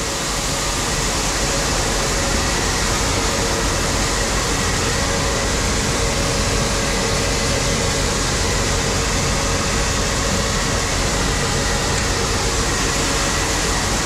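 Grain dryer running: a steady, loud rushing of the fan, with a faint even hum under it.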